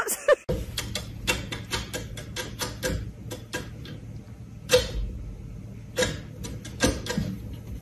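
Irregular sharp clicks and taps, several a second, over a steady low hum, with a few louder knocks near the middle and end.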